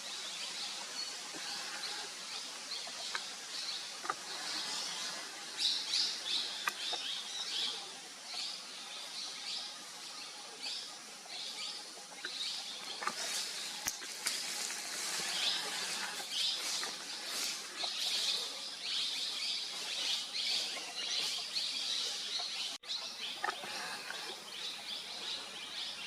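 Forest ambience: birds chirping in short, quickly repeated calls over a steady high hiss, the chirping busiest in the second half.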